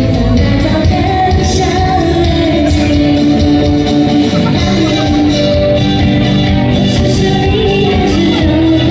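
Loud music with a singing voice holding and bending long notes over a steady drum beat.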